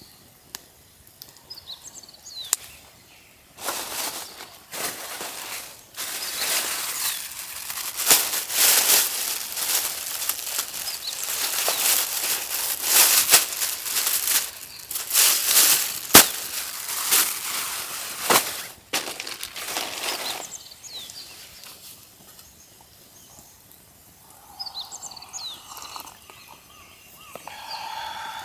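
Small birds chirping in short calls, drowned out for about seventeen seconds by a loud rustling noise with scattered sharp clicks, after which the chirping is heard again.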